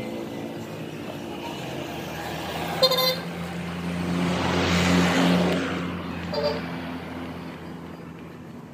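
Road traffic: a motor vehicle passes close by, its engine and tyre noise swelling to a peak about five seconds in and then fading, over a steady engine hum. A short horn toot sounds about three seconds in, and a fainter one about six and a half seconds in.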